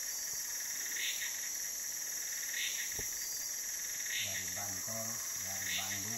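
Tropical rainforest insect chorus: a steady high-pitched drone, with a shorter call repeating about every one and a half seconds. A faint, low, voice-like sound in short broken pieces comes in about four seconds in.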